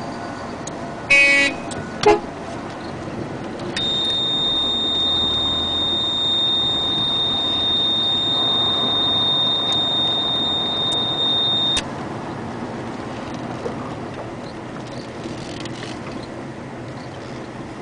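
A vehicle runs with steady road noise. About a second in comes a short loud horn-like toot, with a second brief loud sound a second later. A steady high-pitched electronic beep then holds for about eight seconds and cuts off suddenly.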